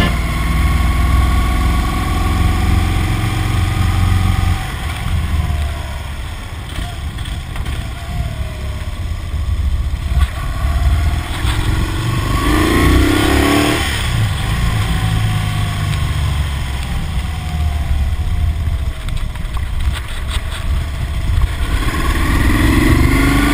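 Motorcycle engine running on the move, a steady low rumble whose pitch rises and falls several times as the throttle opens and closes.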